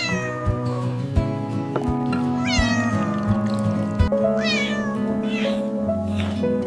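A cat meowing about four times, each call falling in pitch, over background music.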